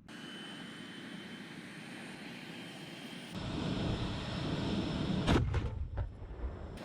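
Steady vehicle engine noise with a hiss, changing abruptly about three seconds in to a louder, deeper rumble. Near the end, two sharp gunshots come about two-thirds of a second apart.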